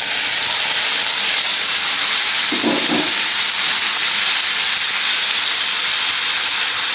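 Boiled turnip cubes sizzling loudly in hot oil in a kadai, a steady, even frying hiss as the wet pieces hit the hot oil.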